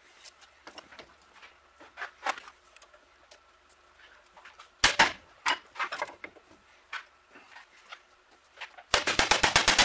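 Sharp clicks and knocks of hand tools and metal parts on a Delco-Remy field-coil frame held in a vise, with one loud knock about halfway through. Near the end comes a fast, even run of about ten clicks in under a second: a ratchet turning out a pole-shoe screw.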